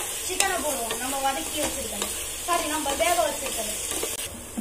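Wooden spatula stirring and scraping a thick onion, tomato and mint masala frying in oil in an aluminium pot: a steady sizzle with squeaky scrapes against the pot and a few knocks of the spatula.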